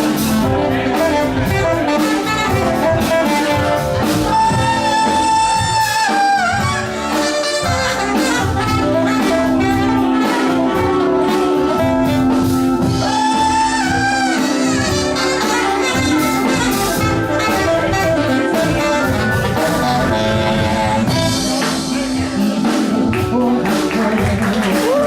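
Live band playing an instrumental break led by saxophone, with long held sax notes over drums and bass.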